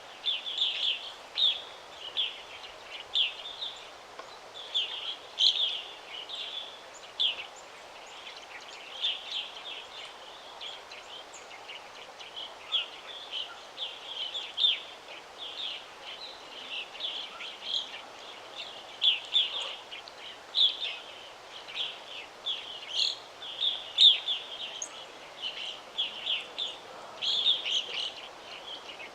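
Songbirds chirping continuously in rapid, overlapping high-pitched calls, with a few fainter, higher chirps, over a steady background hiss.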